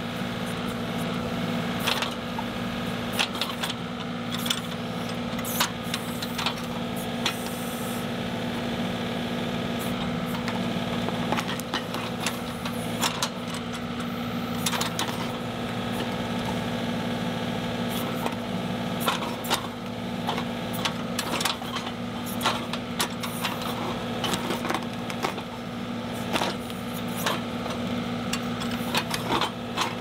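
John Deere 2038R compact tractor's three-cylinder diesel engine running steadily under hydraulic load, as its 270B backhoe drags a ripper shank through soil and roots around a stump. Frequent short sharp cracks and knocks come over the engine.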